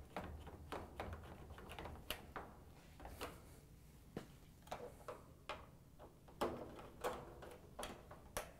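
Hand Phillips screwdriver tightening screws into a washing machine's console end caps: faint, irregular clicks and ticks of the bit and screw.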